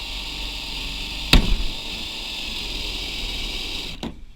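Power drill running steadily as it bores into a hard drive, with one loud sharp crack about a second in as the platter shatters; the drill stops near the end.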